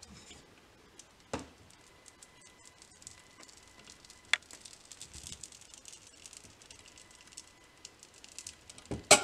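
Steel wires of a Bud's Woodshop multi-wire soap cutter slicing down through a loaf of cold process soap: a fine, continuous crackling with a couple of single knocks, and a loud sharp knock near the end. A satisfying sound.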